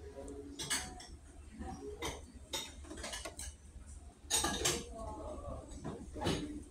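Several sharp clinks and knocks at irregular intervals, the loudest pair about four and a half seconds in, over a steady low hum.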